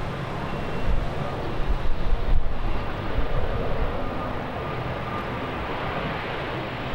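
Bombardier DHC-8-Q400 turboprop airliner rumbling steadily as it comes in to land, with gusty wind buffeting the microphone.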